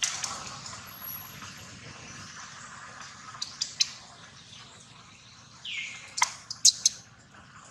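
A steady faint outdoor hiss broken by a few sharp clicks or smacks, loudest in a quick cluster near the end. Just before them comes one short chirp.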